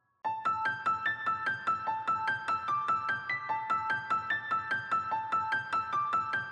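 Background music: a quick, evenly repeating run of high notes, about four or five a second, starting suddenly a quarter second in.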